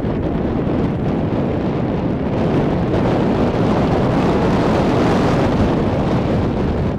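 Wind blowing across the microphone, a steady rush that grows a little louder through the middle.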